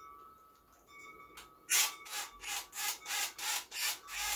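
Repeated rasping strokes from hand work on a dirt bike, about three a second, starting about a second and a half in and growing louder toward the end.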